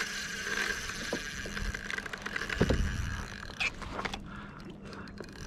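Spinning reel's drag ticking rapidly as a hooked mahi-mahi runs and takes line, the ticking fading after about two and a half seconds. A dull knock comes in the middle, followed by a few scattered clicks.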